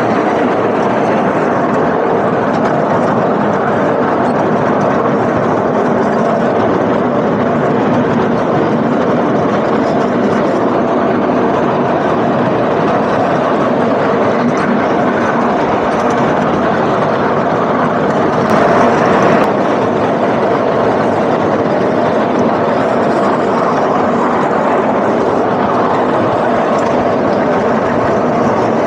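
Narrow-gauge miniature train running, heard from aboard its passenger carriages: a steady locomotive-and-rail rumble, with one brief louder burst about nineteen seconds in.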